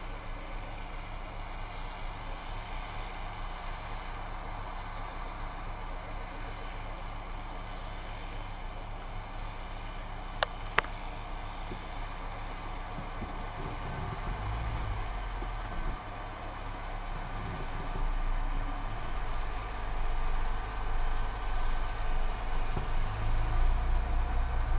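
Engine running steadily, as of the John Deere tractor working a seed drill or the idling car it is watched from. There are two sharp clicks about ten and a half seconds in, and from about fourteen seconds on an uneven low rumble grows louder.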